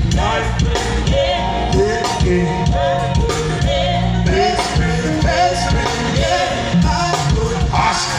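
Loud amplified band music with a heavy bass line and a steady beat, a voice singing over it.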